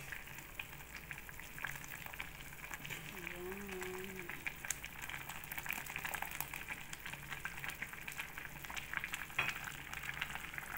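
A pot of water and glutinous rice at a rolling boil, with steady bubbling and fine popping crackles. A metal spoon stirs in the enamelled cast-iron pot now and then.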